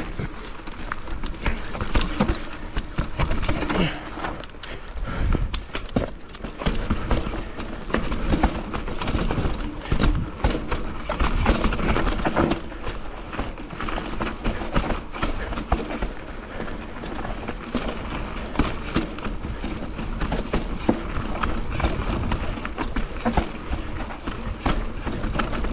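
Enduro mountain bike clattering down a steep, rough trail over roots and rocks: a dense, irregular run of knocks and rattles from tyres, frame and drivetrain. A steady low rumble runs under the knocks.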